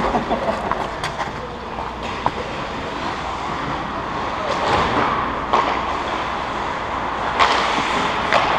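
Hockey skate blades scraping and carving on rink ice, over an echoing arena hum, with a few sharp clicks in the first couple of seconds. Louder short scrapes come about five seconds in and again near the end.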